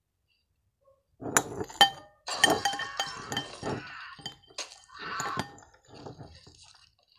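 Thin glass Christmas ornaments crunching and breaking under bare feet, starting about a second in with two sharp clinks, then more crunching, and a man yelling in pain between the breaks.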